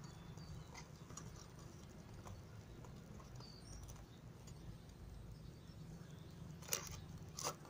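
Scissors snipping into a cardboard toilet-roll tube: a few faint small clicks, then two sharper snips near the end, over a steady low background hum.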